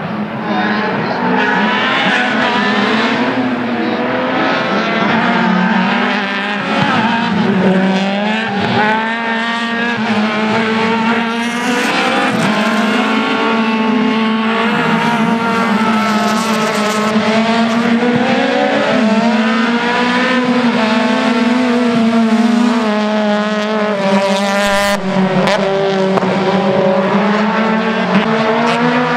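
Racing saloon cars' engines revving hard, their pitch repeatedly climbing and falling as they accelerate, shift and brake through a chicane.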